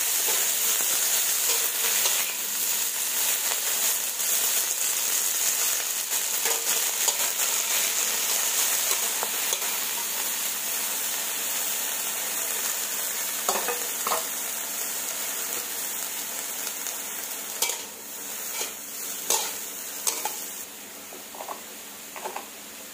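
Garlic chives and bean sprouts sizzling as they are stir-fried in a hot steel wok, turned with a metal spatula. The sizzle dies down steadily. In the second half a few sharp scrapes and clinks come from the spatula against the wok.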